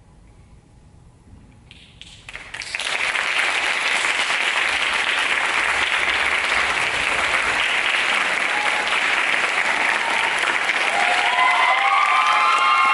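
Theatre audience applauding. A quiet start gives way to clapping about two seconds in, which then holds steady. Near the end a few voices call out in cheers over the clapping.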